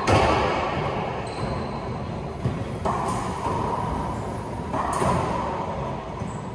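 Racquetball rally: the ball is struck by racquets and smacks off the court walls, four or so sharp hits a second or two apart, each ringing out in the enclosed court's echo.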